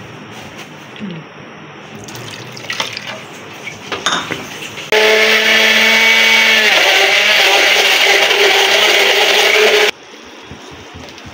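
Electric blender motor running for about five seconds, puréeing tomatoes; its pitch drops slightly about two seconds after it starts as it takes the load, then it runs steady and cuts off abruptly. Before it starts, a few knocks and clicks of the jar and lid being handled.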